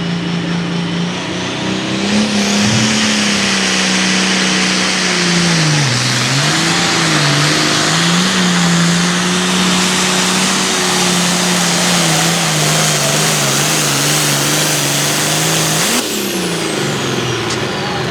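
Hot Farm class diesel pulling tractor running flat out under load as it drags the sled. The engine note sags briefly about six seconds in, recovers and holds steady, then drops about sixteen seconds in as the throttle comes off, with a high whine winding down.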